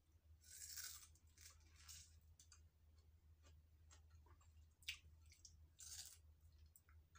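Faint sounds of biting into and chewing a firm piece of peeled mango: a bite about half a second in, smaller mouth sounds after it, a sharp click just before five seconds, and another bite about six seconds in.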